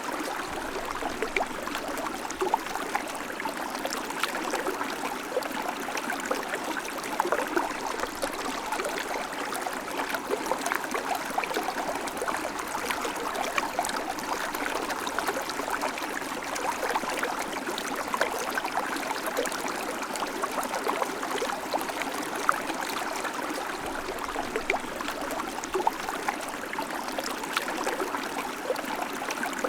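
River water flowing steadily over stones, a continuous rushing with many small splashes and gurgles.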